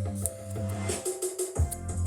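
Background music with a percussive beat and bass line; the bass drops out briefly and comes back in with a heavy hit about a second and a half in.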